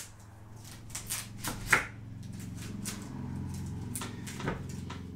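Knife cutting an onion in half on a plastic cutting board: a string of crisp crunches and crackles as the blade goes through the layers, then a single knock at about four and a half seconds. A low steady hum runs underneath in the second half.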